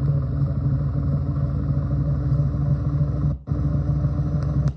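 Ceiling fan motor humming steadily on low speed. The hum cuts out briefly about three and a half seconds in and again at the end.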